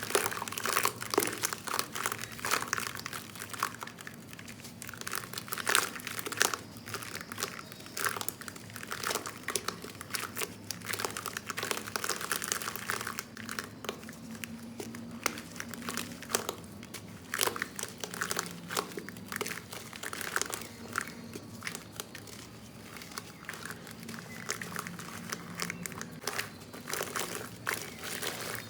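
Soft clumps of black sand crunching and crumbling, a dense, irregular run of small crackles and crunches.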